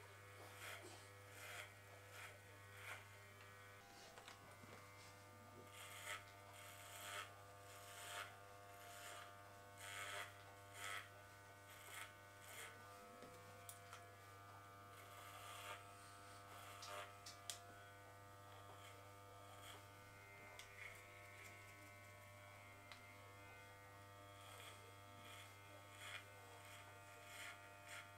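Faint, steady buzz of corded electric hair clippers, with repeated short swishes as the blades pass through hair.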